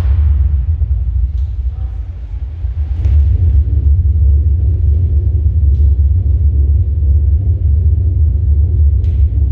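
Loud, deep, steady rumble from a presentation soundtrack played over a venue's loudspeakers, easing briefly about two seconds in, with a few faint clicks over it.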